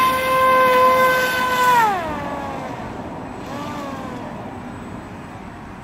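A siren holding one steady tone, then winding down in pitch and fading about two seconds in, with a faint brief rise and fall afterwards.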